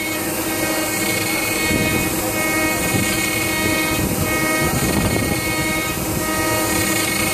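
CNC router spindle running with an end mill cutting plectrum shapes out of a timber board: a steady whine over the rough noise of the cutter in the wood, which gets heavier about two seconds in.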